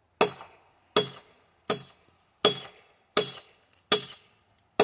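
A metal blade chopping into a hard walnut branch: seven sharp, evenly spaced strokes about every three-quarters of a second, each with a brief metallic ring.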